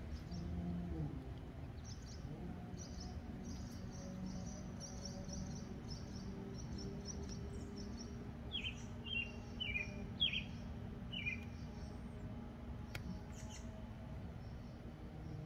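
Songbirds chirping: a long run of short, high chirps, then about five quick down-slurred notes near the middle, over a steady low hum.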